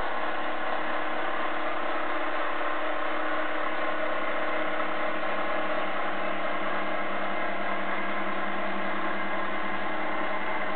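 12-volt gear motor of a homemade cat feeder running steadily at an even pitch as it turns the food-dispensing drum.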